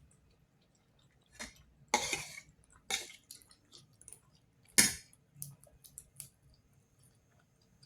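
A cat eating cat food: several sharp, irregular crunching and smacking noises, the loudest about two and five seconds in, followed by softer little clicks.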